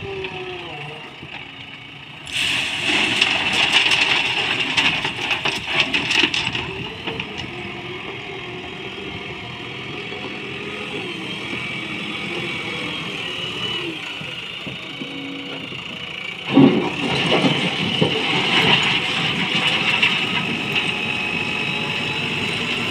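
JCB backhoe loader's diesel engine running and revving, its pitch rising and falling as the hydraulics work. About two seconds in, a bucketful of railway ballast stones clatters into the steel body of a tipper truck for about four seconds. Near the end, the front bucket drives into the ballast pile with a loud scraping rattle of stones.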